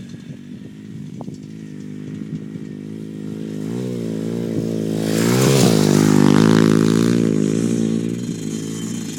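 Small dirt bike engine coming closer with the throttle worked on and off. It gets louder, with the pitch rising and falling, is loudest about six seconds in, then eases off and fades somewhat.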